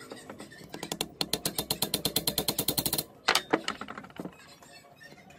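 Rapid, even metallic clicking, about ten clicks a second, for about three seconds, then a few louder knocks.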